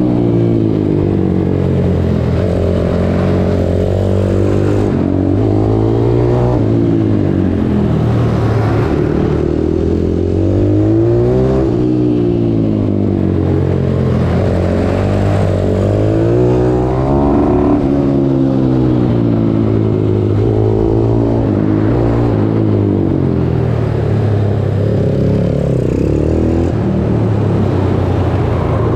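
YCF SM F160 pit bike's single-cylinder four-stroke engine, revving up and dropping off over and over as the bike accelerates out of each bend and shuts off into the next around a tight track.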